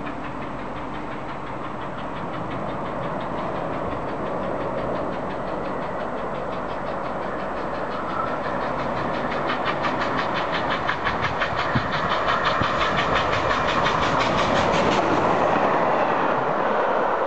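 Bulleid Battle of Britain class three-cylinder steam locomotive 34067 Tangmere running through at speed, its rapid exhaust beats getting louder as it comes closer, with a wheeze from the left-hand cylinder cock stuck open. The beats stop suddenly near the end, leaving a steady rush of the passing train.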